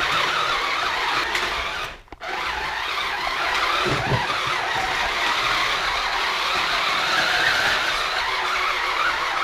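New Bright R/C blaster mech's electric drive motors and tracks running as it drives across the floor, a steady whirring that drops out briefly about two seconds in.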